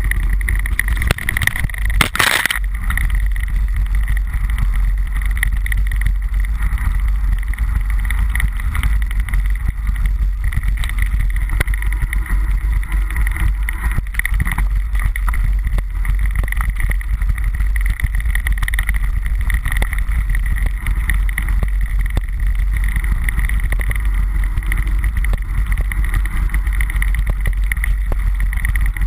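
Mountain bike riding fast down a bumpy dirt trail: wind buffeting the microphone as a steady low rumble, with the bike rattling and clicking over roots and ruts. A sharp knock stands out about two seconds in.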